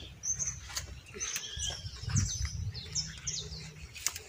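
Small birds chirping, a quick series of short falling notes several times a second, over steady low background noise with a dull thump about halfway through.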